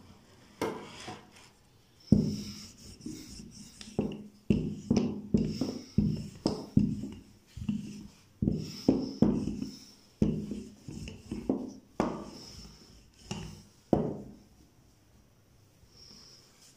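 A wooden rolling pin (belan) rolling over samosa dough and knocking against the wooden board as the sheet is rolled thin. It makes a run of irregular knocks and rubs, several a second, which stop a couple of seconds before the end.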